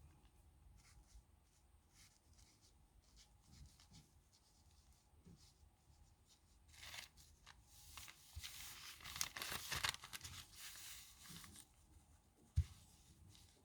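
Pen nib scratching on paper in short strokes, with a louder stretch of paper rustling in the second half and a single dull knock near the end.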